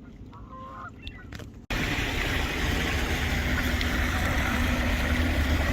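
A quiet moment, then, from an abrupt cut about two seconds in, a motorboat engine running steadily with a low hum, over a loud rush of water and wind.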